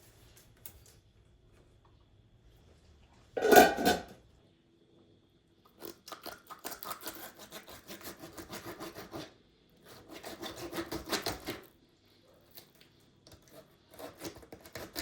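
A single loud clatter about three and a half seconds in, then bouts of rapid, repeated rubbing or scraping strokes, each lasting a few seconds.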